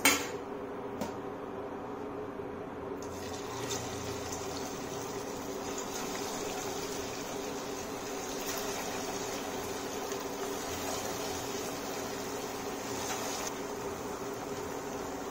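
Corn tikkis frying in hot oil in a kadhai: a steady sizzle that gets brighter about three seconds in. A short knock at the very start is the loudest sound.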